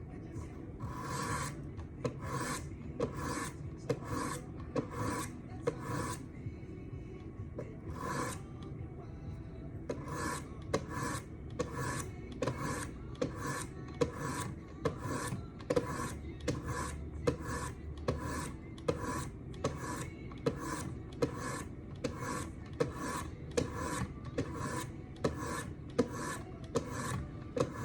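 400 grit abrasive stones of a Wicked Edge guided sharpener being stroked along a folding knife's blade edge, a steady rhythm of scraping strokes at about two a second. The strokes pause for a few seconds in the first third, then resume.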